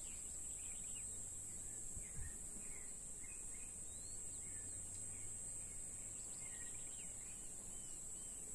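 Steady high-pitched insect drone, with scattered short bird chirps and a low wind rumble; a brief low thump about two seconds in.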